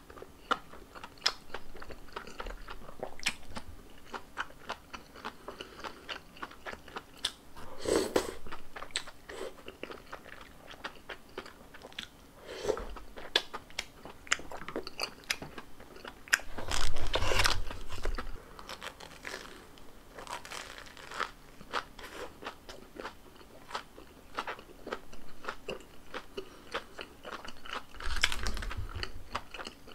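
Close-miked eating of tteokbokki rice cakes and a breaded Korean corn dog: steady wet chewing with many small mouth clicks and crunches. A few louder bites or crunches stand out, the loudest about halfway through.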